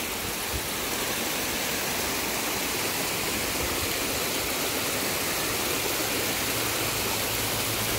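Hot spring water cascading over rocks, a steady rush of splashing water.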